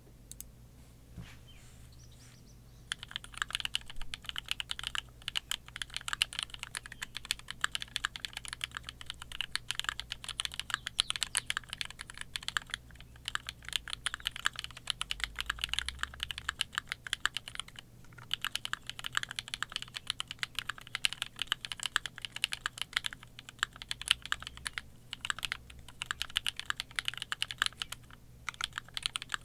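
Fast typing on a custom mechanical keyboard with lubed and filmed linear switches (MX black housings with Kailh Cream stems), an aluminium plate and GMK keycaps. A few single keystrokes, then continuous rapid typing from about three seconds in, with short pauses now and then.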